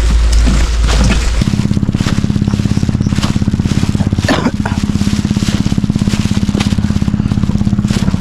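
Small engine idling with a rapid, even putt-putt pulse that sets in about a second and a half in, after a stretch of low rumbling.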